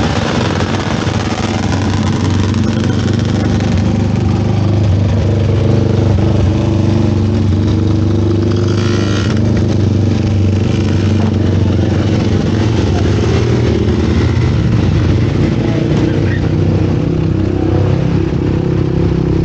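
Small off-road engines of youth quads and dirt bikes running steadily in the pits, with a short burst of hiss about nine seconds in.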